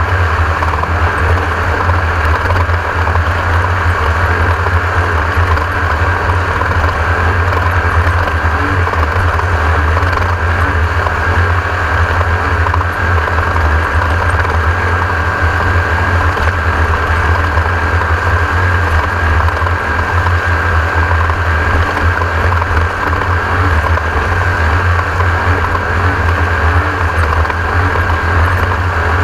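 Onboard sound of a Class 1600 desert race buggy running at speed: a steady, loud engine drone with rattle and a thin high whine, holding unchanged throughout.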